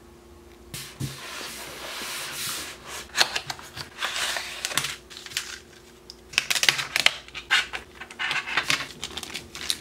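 Plastic and cardboard packaging of a boxed N scale model freight car being handled: a rubbing, sliding hiss from about a second in as the clear plastic tray comes out of its cardboard box, then a run of sharp crinkles and clicks from the clear plastic tray and the plastic sleeve around the car.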